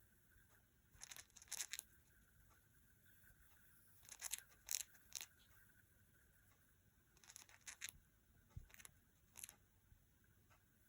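Cockatiel grinding its beak: four short spells of fine, high scraping and crunching, each about a second long and a few seconds apart. The bird is drowsy, and beak grinding is the typical sign of a contented cockatiel settling to sleep.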